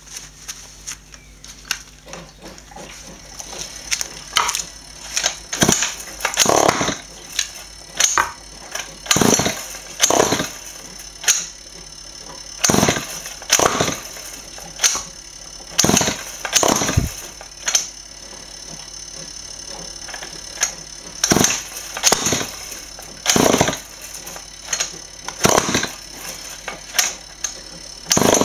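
Small two-stroke engine, fed hydrogen (HHO) gas instead of petrol, pull-started over and over: about twenty short cranking whirrs roughly once a second, with a few seconds' pause about two-thirds of the way through. The engine does not catch and run.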